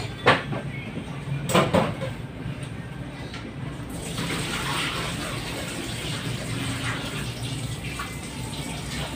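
Cloth rustling as a patient's gown is folded back off the abdomen: a couple of brief rustles in the first two seconds. From about four seconds in, a steady hiss runs underneath.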